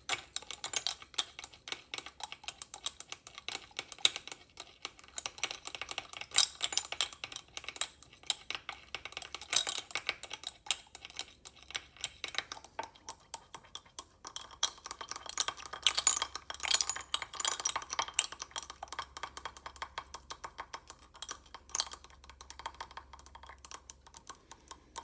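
An ice cube and a metal temperature probe clinking against the inside of a small glass beaker of water as it is stirred: rapid, irregular ticks and clinks, a little quieter near the end.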